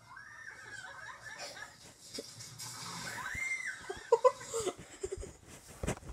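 Children's voices heard from a video playing on a television: a high shriek about three seconds in, then short bursts of laughter.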